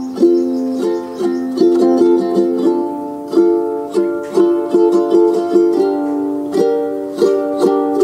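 Background music: a light tune of plucked-string notes over held chords, at an even pace.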